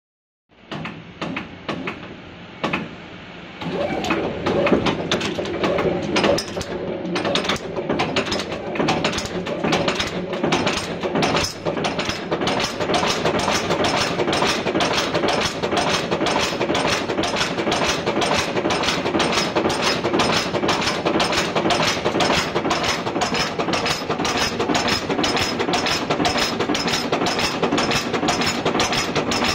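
Screw nail making machine (a cold header) running, its heading and cutting strokes making an even, rapid mechanical clatter that gets louder about four seconds in.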